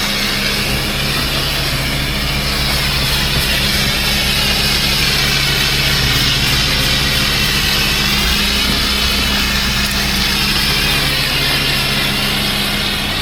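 Gas-engine 12 GPM pressure washer running steadily under load, with a constant hiss of water spraying from the rinse and treatment spray.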